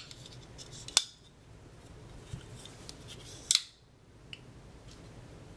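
Sharp metallic clicks from a Strider SNG titanium framelock folding knife being handled: one about a second in and a longer snap about three and a half seconds in, as the blade is swung and locks up.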